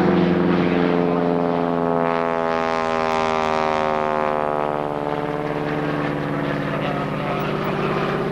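Single piston-engine propeller light aircraft flying low overhead, its engine and propeller drone held steady. The tone sweeps as it passes about a third of the way in, then eases slightly as it moves away.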